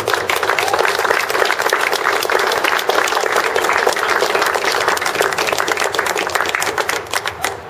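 A small crowd of spectators clapping in applause, a dense steady patter of many hands that thins to scattered claps near the end.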